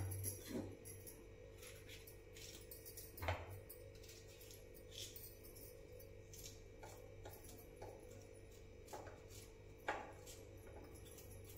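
Faint clinks and knocks of a knife and stainless-steel bowls as a capsicum is cut by hand over a bowl, three sharper ones at the start, about three seconds in and near the end, over a steady low hum.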